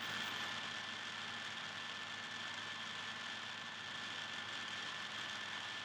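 Steady background hiss with a faint low hum and a thin high whine: room tone from the narration recording between sentences.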